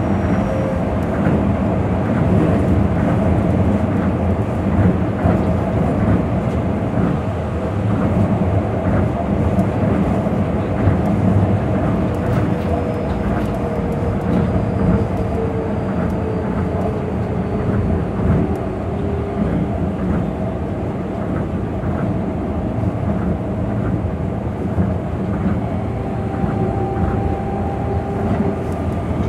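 Tokyo Monorail 2000 series train running, heard from inside the car: a steady rumble from its rubber-tyred running gear on the guideway. A faint tone slides slowly down in pitch partway through.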